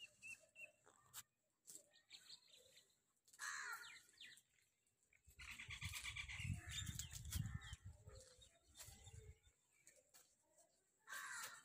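Faint animal calls, a few short ones, with a low rumble in the middle lasting a few seconds.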